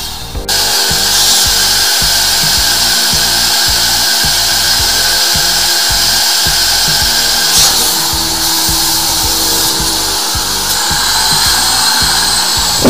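Motor of a drain-cleaning machine running steadily while its orange hose is fed into a clogged urinal drain.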